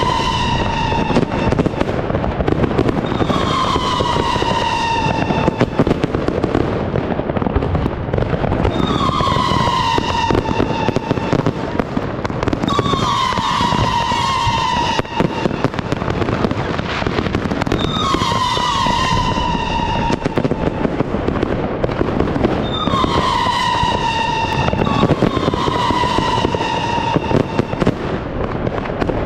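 A 25mm fireworks cake firing a continuous barrage: dense crackling and popping, with a whistle about every two seconds that falls slightly in pitch over about a second.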